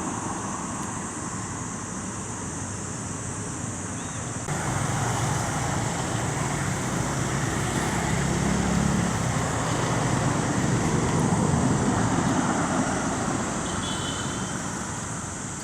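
Road traffic noise, with a vehicle passing: a steady rush that steps up about four seconds in, grows louder through the middle and fades near the end. A brief high squeak is heard near the end.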